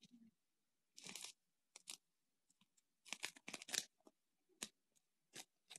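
Faint crinkling and tearing of a sanitary pad's wrapper and adhesive backing being peeled off by hand, in short irregular crackles: a longer one about a second in, a quick cluster around three to four seconds in, and a few single crinkles after.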